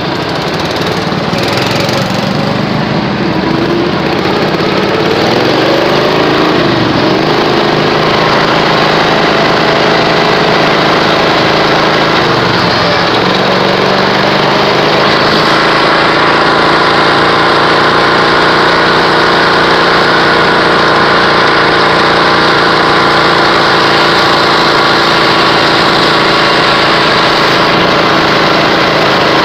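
Riding lawn mower engine running loud and steady while the mower drives along, its pitch dipping briefly and coming back up twice.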